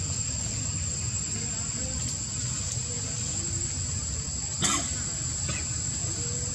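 Outdoor ambience with a steady high-pitched insect drone over a low rumble. Two short sharp sounds come about two-thirds of the way through, less than a second apart.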